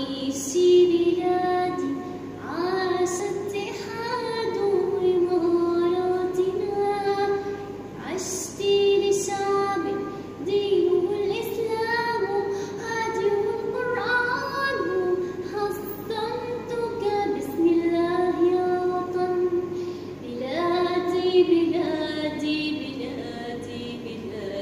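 A woman singing a melodic song solo in a high voice, holding long notes and pausing briefly for breath between phrases.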